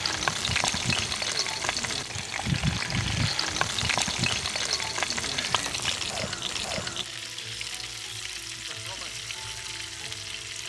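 A whole marinated catla fish deep-frying in hot oil in a wide aluminium pan, with a dense crackling sizzle. About seven seconds in, the sizzle drops lower and background music comes in over it.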